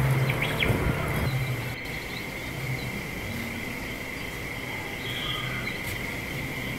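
Steady high-pitched insect drone over outdoor background noise, with a low hum in the first second and a half.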